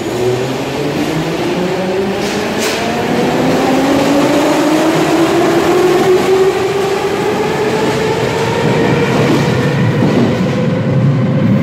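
An 81-717.5/81-714.5 metro train pulling away from the platform, its traction motors whining in a steadily rising pitch as it accelerates and growing louder. There is one short sharp click about two and a half seconds in.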